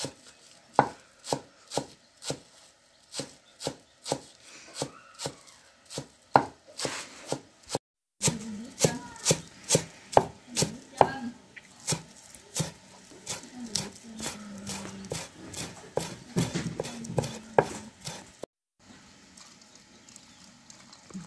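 A cleaver chopping green onions on a thick wooden chopping block, with sharp, regular strokes about two to three a second that stop twice for a moment.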